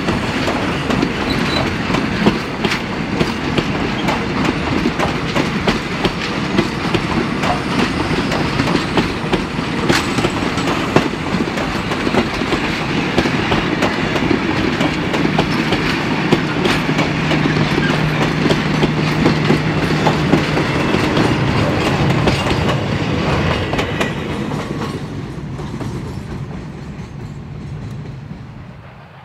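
Heritage passenger carriages rolling past close by, their wheels clicking and clattering over the rail joints above a steady rumble. The sound fades away over the last few seconds as the final carriage goes by.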